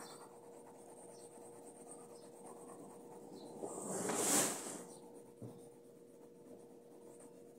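Pencil scratching faintly on paper during drawing. About four seconds in, a louder hiss swells and fades, followed by a single short click.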